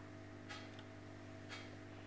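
Quiet room tone with a steady low electrical hum and a faint, soft tick about once a second.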